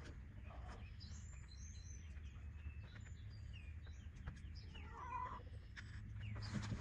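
Faint outdoor ambience with a steady low rumble and short high chirps, then a short animal call about five seconds in.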